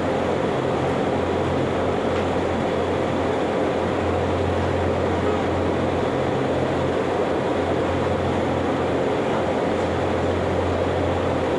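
A steady mechanical drone with a constant low hum and a fainter higher tone, never changing in level.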